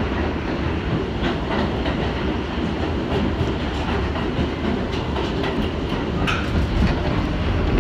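1984 Kawasaki R62 subway car running through a tunnel: a steady low rumble with irregular clicks of the wheels over the rails, and a brief squeak about six seconds in.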